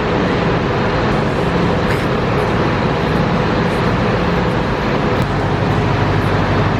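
Steady, loud background noise with a faint hum and no distinct events, like road traffic.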